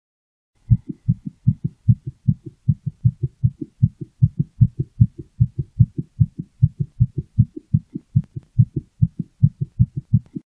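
A calico cat's heartbeat picked up through a toy stethoscope pressed to its chest: steady paired lub-dub thuds, about two and a half beats a second, 150 beats a minute. It starts about a second in.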